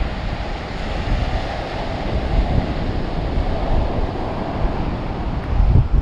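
Ocean surf washing on a beach with wind buffeting the microphone, a steady rushing noise, with a louder low buffet near the end.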